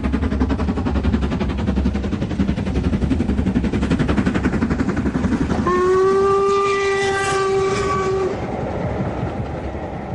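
LMS Stanier Black Five 4-6-0 steam locomotive working a train with rapid exhaust beats, then sounding its whistle for about two and a half seconds as it passes close. The coaches follow with a fading run of wheel noise.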